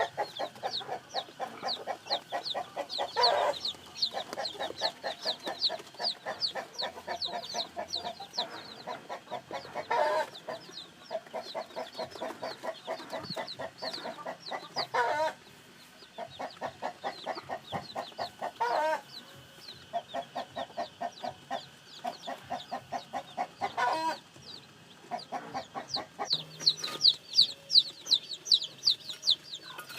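A brood of chicks peeping continuously in quick, high, falling chirps, over a hen's low rapid clucking. A louder short call cuts in every several seconds.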